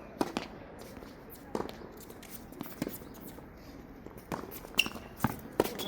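Tennis balls being struck and bouncing during doubles play: a series of sharp knocks at irregular intervals.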